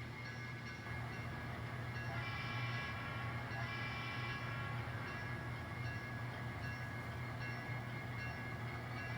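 N scale model train running on the layout, its DCC sound-equipped locomotive playing a steady engine sound as it pulls a heavy 17-car rock train. The sound holds steady, getting a little fuller about two seconds in.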